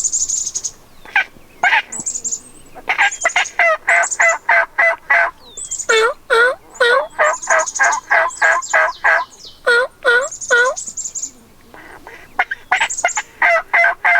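Turkeys yelping in quick runs of about four to five notes a second, several runs with a short lull near the end, with higher, thinner chirping notes over them.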